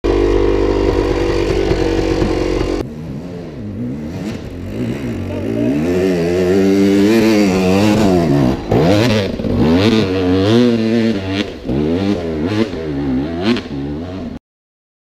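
Gas Gas EC 250 two-stroke enduro motorcycle engine running at steady revs, then, after a sudden change about three seconds in, revving up and down over and over in rising and falling sweeps of pitch. It cuts off abruptly near the end.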